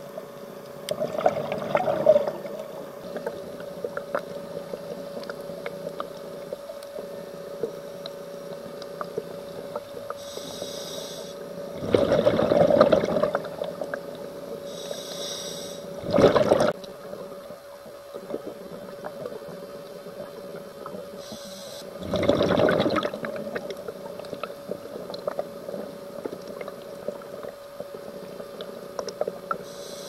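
Underwater recording through a camera housing: a diver's scuba regulator exhaling, heard as four loud bursts of bubbling spread through the stretch, over a steady low hum and scattered faint clicks.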